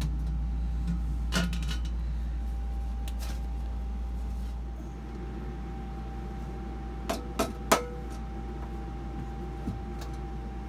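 Sharp metal knocks and clinks of hands and tools at work on hose and pump fittings in a motorhome's engine bay. There is one about a second in, three in quick succession about seven seconds in (the last the loudest), and a lighter one near the end. Under them run a steady low hum and a faint steady high tone.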